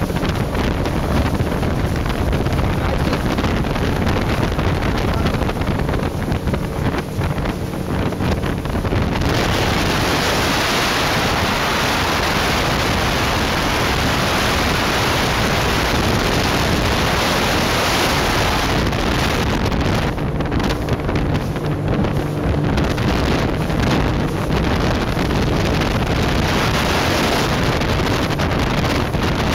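Motorboat under way with a Mercury F30 four-stroke outboard, the engine and water noise largely buried under heavy wind on the microphone. A bright hiss of rushing water and wind swells for about ten seconds from about a third of the way in.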